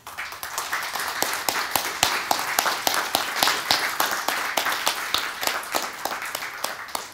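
Audience applauding, many hands clapping at once; it starts suddenly and dies away near the end.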